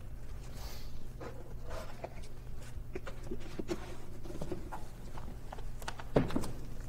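Footsteps and small knocks on a stage floor: a run of light, uneven taps with a couple of louder thuds about six seconds in, over a faint steady hum.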